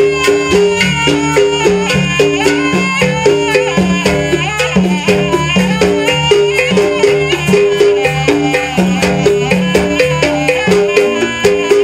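Jaranan gamelan dance music: a high, wavering reed melody over a repeating pattern of pitched gong-chime notes and steady, fast drum strokes.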